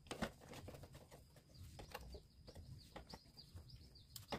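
Scattered faint clicks and taps of an exhaust stud bolt being worked loose by hand at a Suzuki Satria FU motorcycle's exhaust header, with the sharpest tap just before the end. Small birds chirp in the background.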